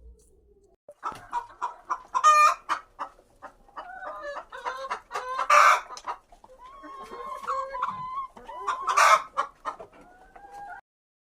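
Chickens clucking, many short calls overlapping, with two louder harsh calls about five and a half and nine seconds in. The sound cuts off suddenly near the end.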